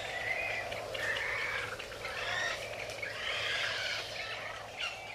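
Birds calling, with many short chirping calls overlapping one another.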